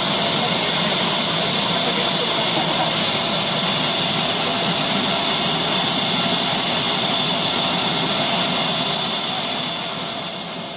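Jet turbine engines running on the flight line: a steady, high-pitched whine over a loud hiss. It fades out near the end.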